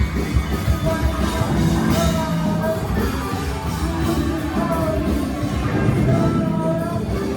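Rock song with a singer holding long notes over guitar and a steady band backing.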